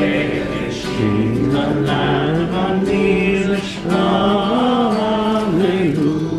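A small group of adults singing a Christmas song together in slow, held notes, accompanied by an acoustic guitar.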